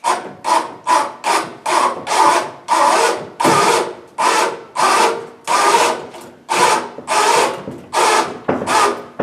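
A hand ratchet puller (come-along) being worked in quick strokes, pulling the lathe, each stroke a loud ratcheting rasp, about two a second, running until the puller reaches the end of its pull.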